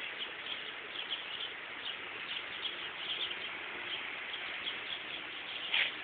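Outdoor background with scattered faint bird chirps over a steady low hiss.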